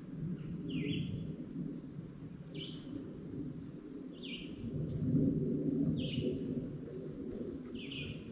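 A bird giving a short downward-slurred call five times, about every second and a half, over a steady high insect drone, with low rustling underneath.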